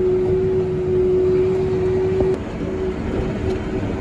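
Farm tractor running under way, heard from inside the cab: a steady low engine drone with a loud, steady whine that drops off about two and a half seconds in.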